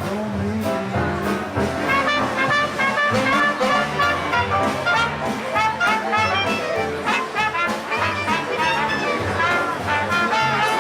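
A band playing jazz, with brass instruments prominent among many quick notes.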